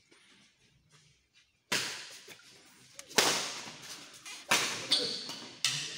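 A badminton rally: sharp cracks of rackets striking a shuttlecock, about five hits beginning nearly two seconds in and coming roughly every second and a half, each with a short echo from the hall.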